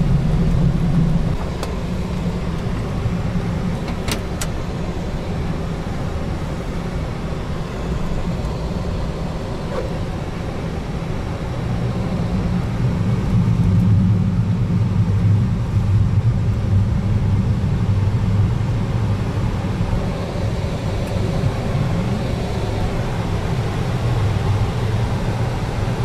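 Boeing 737 cockpit noise on the ground just after landing: a steady low rumble of the idling engines and the aircraft rolling, with a couple of faint clicks about four seconds in.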